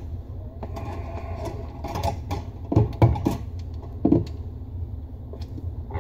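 Metal pop-up drain rod and linkage under a bathroom sink being handled and moved out of the way: a few sharp knocks and clicks, the loudest a cluster about three seconds in and another about a second later, over a steady low hum.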